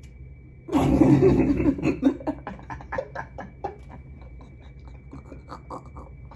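People laughing hard: a loud outburst a little under a second in, then a run of short, fainter bursts of laughter.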